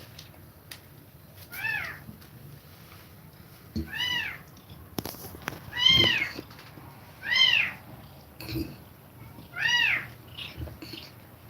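Kitten mewing: five short, high-pitched mews, each rising and then falling in pitch, about one every two seconds, with a few faint knocks between them.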